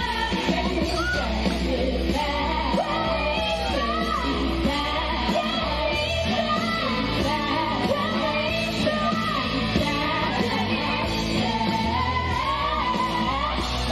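A woman singing a rock-style song over a loud backing track with a steady bass line, heard through a stage sound system.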